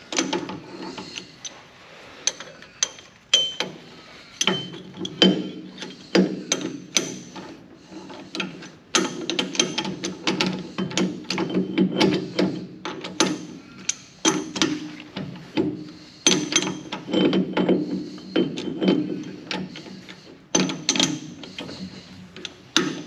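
T-handle chuck key turning the jaw screws of a four-jaw lathe chuck, with many irregular clicks and clanks of metal on metal as the jaws are brought in on a rusty steel bar.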